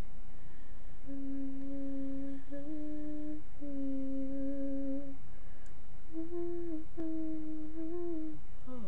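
A woman humming a slow tune with her mouth closed: held notes in short phrases, with a pause about halfway through.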